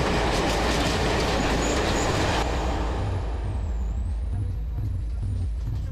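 Mumbai suburban electric train running over the rails: a loud rushing clatter that eases about two and a half seconds in into a lower rumble with a soft beat about twice a second.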